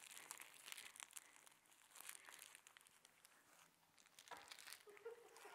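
Faint rustling and crinkling of a cloth blindfold being untied and pulled off, with small irregular clicks.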